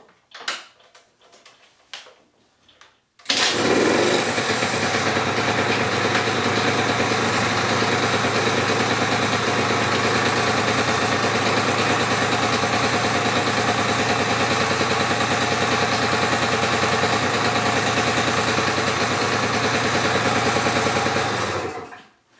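1986 Honda Spree's 50cc two-stroke engine cold-started with the kickstarter: a few knocks, then it fires on the first kick about three seconds in and idles steadily until it is switched off just before the end.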